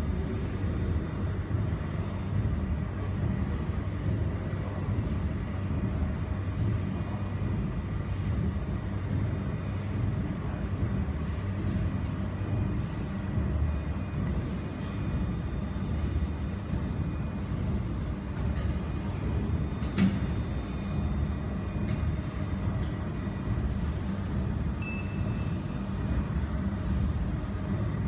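Steady low machine hum with faint steady high tones, and a few faint clicks, one sharper click about twenty seconds in.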